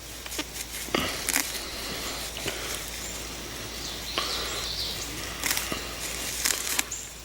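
Wet flat-bladed grass being picked and handled, giving rustling with irregular snaps and crackles of stems.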